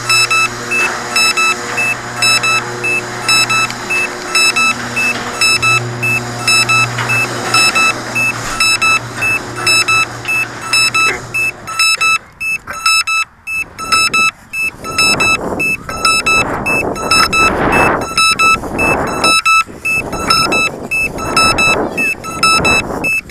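A crashed drone's alarm beep repeating rapidly, over a steady low hum that stops about halfway through. From about two-thirds of the way in, rustling and knocks of the drone being picked up and carried come in over the beeping.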